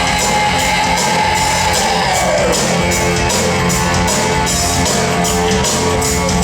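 Live rock band playing: drum kit keeping a steady cymbal beat under electric guitar, with a held note sliding down in pitch about two seconds in.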